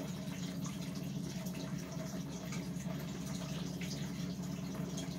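Steady low hum with a light airy hiss from an electric floor fan running, with a few faint small ticks.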